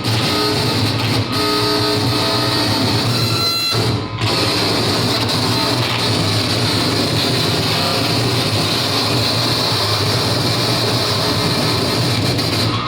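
Live harsh noise music: a dense, loud wall of distorted noise over a steady low hum, with a few held tones in the first few seconds. It cuts out briefly about four seconds in.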